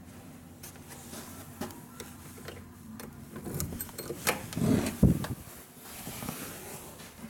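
Hotel room door being unlocked and opened: scattered clicks and knocks from the lock and handle, then a heavy thump about five seconds in.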